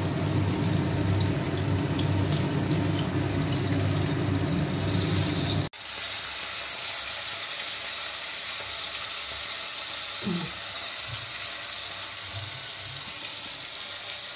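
Ash gourd curry simmering and sizzling in a pan on a gas burner, with a low rumble under the hiss. The sound cuts off abruptly about six seconds in and is replaced by a thinner, steady high sizzle.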